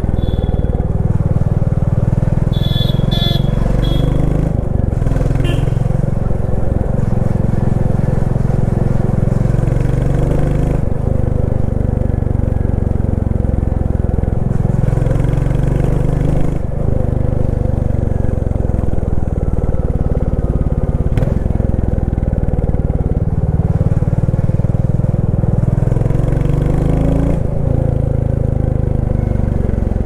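Royal Enfield Classic 350's single-cylinder 349 cc engine thumping through its exhaust while riding. Its pitch rises and falls a few times with throttle and gear changes. A few short high beeps come about three seconds in.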